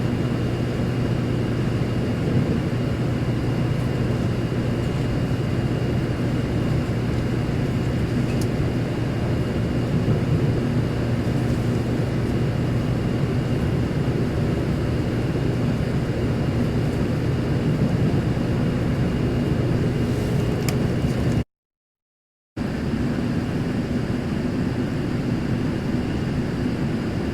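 Steady running noise heard inside a 0 Series Shinkansen car at speed: a continuous low rumble and hum with a faint steady high tone over it. The sound cuts out completely for about a second near the end.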